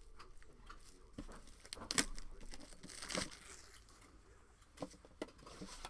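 Plastic wrapping on a sealed trading card box being torn open and crinkled. There is a sharp snap about two seconds in and a longer tear about three seconds in.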